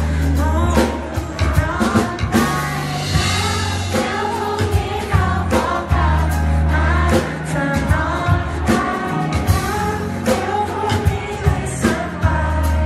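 Live band music: a male singer singing into a handheld microphone over a drum kit and bass, amplified through a PA.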